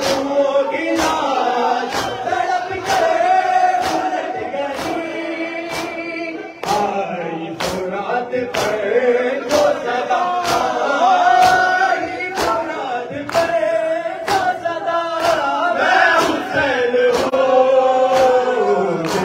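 A noha chanted by male reciters through microphones, with a crowd of men singing along in unison. Sharp strikes about once a second keep the beat: matam, hands beating on chests.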